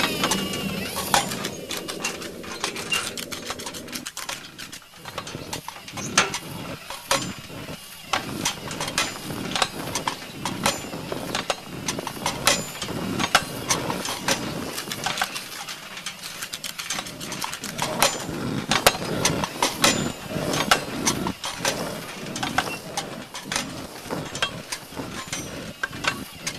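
Sound effects for a small animated walking robot: a quick, irregular run of metallic clicks, taps and clanks from its jointed metal legs moving and stepping. A low hum runs under the first few seconds.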